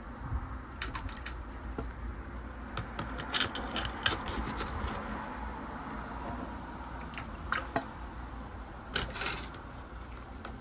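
Turkey baster working in a shallow plastic tub of water: irregular squishes, slurps and drips as water is sucked up and dribbles back, loudest about three to four seconds in and again near nine seconds.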